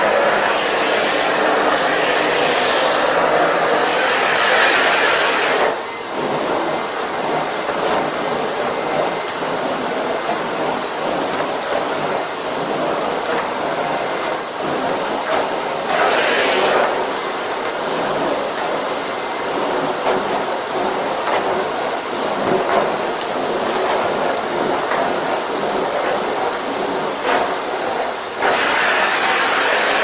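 Vacuum cleaner running at maximum power in a test on hard floor and carpet, a steady suction noise with a faint high whine. The noise is louder for the first six seconds and drops suddenly. It swells briefly about halfway through and grows loud again near the end.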